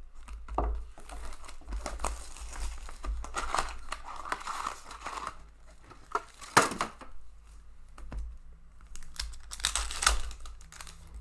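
Hands slitting and tearing open a 2019-20 Upper Deck Credentials hockey card box, with rustling and crinkling of wrap and cardboard and a sharp click about six and a half seconds in; near the end a foil card pack is ripped open.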